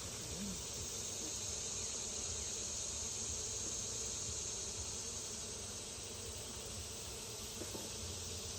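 Honeybees buzzing around an open hive during a frame inspection, with a steady high-pitched insect drone over them that swells about a second in and fades after about six seconds.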